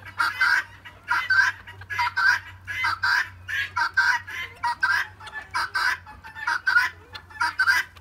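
A flock of chickens clucking: a steady run of short, sharp calls, about three a second.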